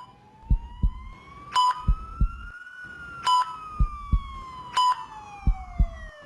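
Intensive-care ambience sound effect: a patient monitor beeps about every second and a half over paired lub-dub heartbeat thumps. Meanwhile one siren wail rises slowly in pitch and then falls away.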